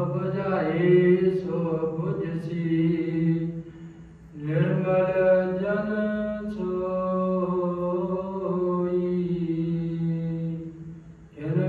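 A man's voice chanting Gurbani in the slow, melodic style of a hukamnama recitation: long held phrases with a short pause for breath about four seconds in and another near the end.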